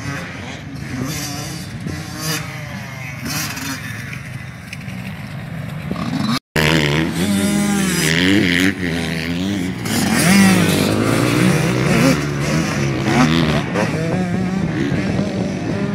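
Dirt bike engines revving up and down as they ride, the pitch rising and falling with the throttle. A cut about six and a half seconds in is followed by a closer, louder bike.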